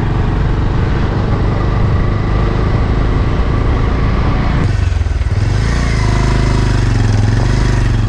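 Engine running and wind rushing past a road vehicle on the move, heard from on board as a loud, steady rumble. The tone shifts about halfway through to a steadier low hum.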